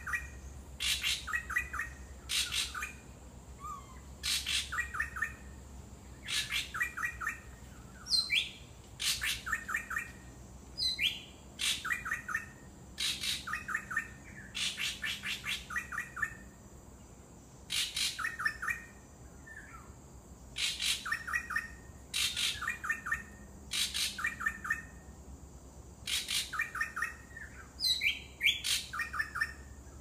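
A drongo calling over and over: short harsh rattling bursts, often in pairs about every second, mixed with a few sliding whistled notes.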